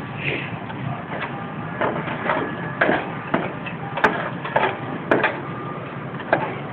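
Irregular knocks, clicks and scrapes from work on a clay tile roof, with two sharp clicks about four and five seconds in.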